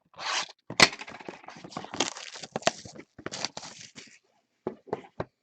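Cardboard retail box of trading-card packs being torn open and the packs handled. There is a sharp crack about a second in, then dense crackling and crinkling for about three seconds, then a few scattered clicks near the end.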